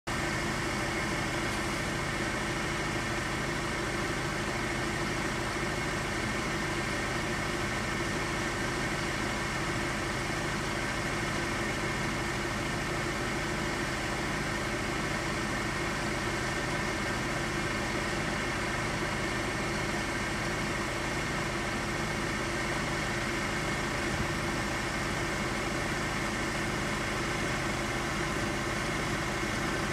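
Steady mechanical hum of an idling engine, holding an even level throughout with a slow regular pulse underneath.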